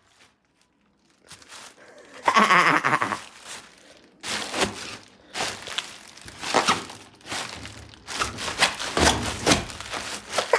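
Bubble wrap being stepped on, crinkling and crunching in a series of short bursts about once a second. About two seconds in there is a brief voice-like sound.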